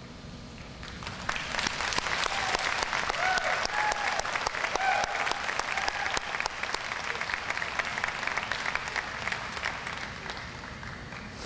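Audience applauding: the clapping starts about a second in, swells quickly and fades away near the end.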